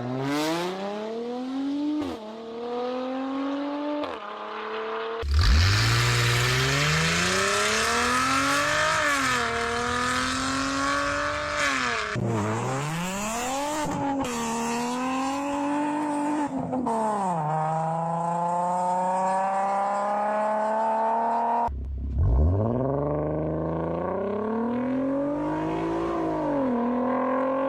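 Performance car engines and exhausts accelerating hard through the gears, the pitch climbing and then dropping at each shift, in short clips cut together. Sudden cuts to a new, louder car come about five seconds in and again about twenty-two seconds in.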